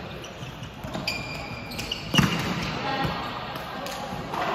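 Indoor volleyball rally: a volleyball is struck with a loud slap about two seconds in, among lighter knocks. Short high squeaks come from sneakers on the court floor, and players' voices can be heard.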